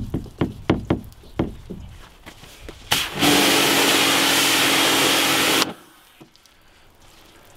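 A few light scratchy taps, then about three seconds in an electric pressure washer sprays plain water at close range for about two and a half seconds: a steady hiss of spray over the pump motor's steady hum, which cuts off sharply.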